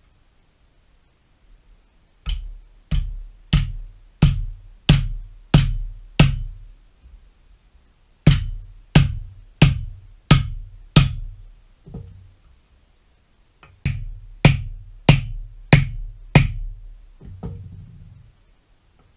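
Mallet blows on a wooden block, tapping a new pilot bearing into the front end of a BMW E39 driveshaft. Three runs of steady thumps, about one and a half a second, with short pauses between them.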